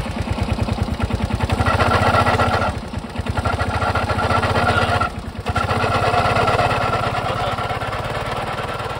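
Suzuki Access 125 scooter's single-cylinder engine running with a loud noise from the CVT drive-belt casing, in a rapid, even beat that dips briefly about three and five seconds in. The noise comes from a drive belt with broken teeth: one tooth is jammed in the pulley, which has stayed expanded, so the belt slips.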